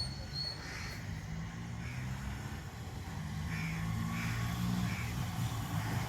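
Enfield Fury motorcycle engine idling steadily, growing a little louder near the end, while a bird calls a few times in the background.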